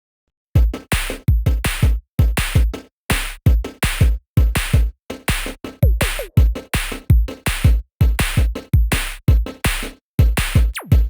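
Electronic music with a drum-machine beat and heavy bass hits, starting about half a second in after silence.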